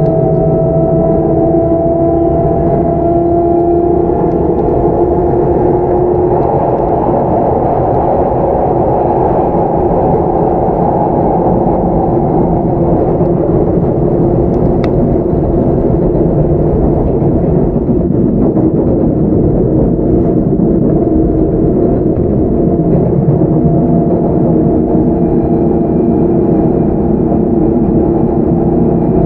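Running sound inside a Sotetsu 9000-series electric train: a steady rumble of wheels on rail with the whine of its Hitachi IGBT VVVF inverter, traction motors and right-angle cardan drive. The whine rises slightly at first, fades out for a while, and comes back about two-thirds of the way through.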